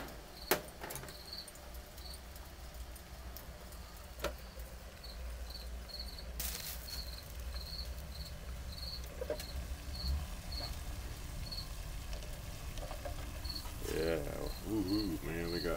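Crickets chirping again and again at one high pitch, over a steady low rumble from the wood-burning can stove and its pot of water at a rolling boil. A few sharp metal clicks and a short scrape come as the pot lid is handled and lifted off with pliers, and a low voice is heard briefly near the end.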